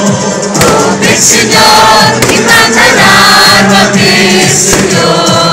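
A crowd singing a hymn together with music, with several sharp cracks cutting through now and then.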